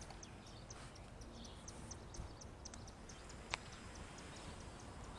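Quiet outdoor ambience: a low, even rumble under a steady run of short, high-pitched chirps at about five a second, with a single sharp click about three and a half seconds in.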